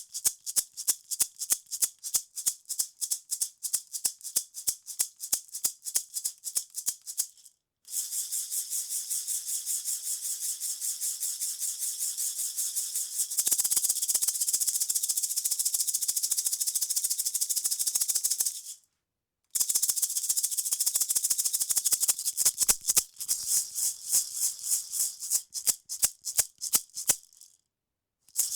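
Bamboo hit sound effect: dry, high-pitched wooden clicks at about five a second. About eight seconds in, they merge into a dense continuous rattle lasting some ten seconds. After a brief break, they return to separate clicks.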